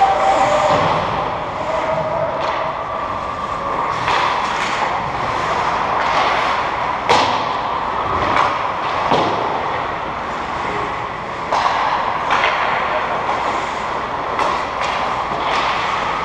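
Ice hockey play: skate blades scraping and carving on the ice in a steady rush of noise, broken by sharp clacks of sticks and puck against the boards and net a handful of times.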